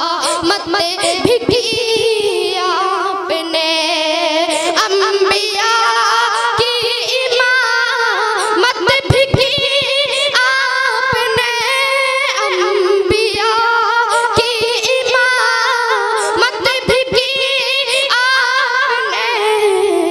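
A boy singing a naat solo into a microphone, in long ornamented phrases with wavering held notes.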